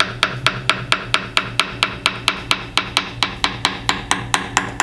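Small tap hammer tapping steadily, about four taps a second, along the carbon-fiber skin of a composite helicopter main rotor blade test specimen in a tap-test inspection for delamination. Over the inboard corner of the weight pocket the solid tone turns into a flatter, buzzing sound, the sign of a delamination under the skin.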